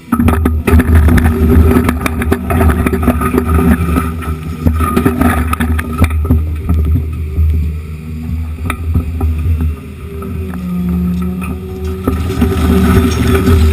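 Excavator's diesel engine running under load while broken concrete chunks clatter and scrape against the bucket and the pile. The clatter is dense over the first half, then thins to a few knocks as the engine and hydraulics carry on, rising in pitch near the end.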